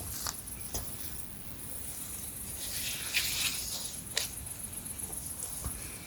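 Insects chirring steadily in a high, finely pulsed band, with a few sharp clicks and a brief rustle about three seconds in.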